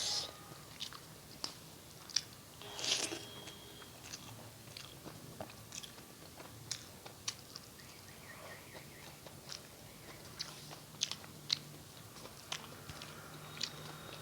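Close-miked eating sounds: chewing with scattered short wet clicks and crunches, and a louder crunchy bite about three seconds in.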